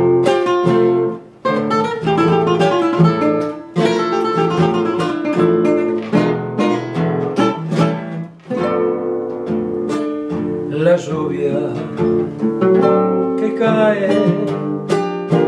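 Two acoustic guitars playing together, strummed chords and plucked melody notes, in the instrumental introduction of an Argentine zamba.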